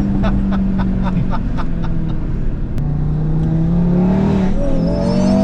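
Audi RS3's turbocharged 2.5-litre five-cylinder through a DAZA exhaust while driving: a quick run of sharp exhaust pops and crackles over the first second and a half, then steady running, with the revs climbing near the end.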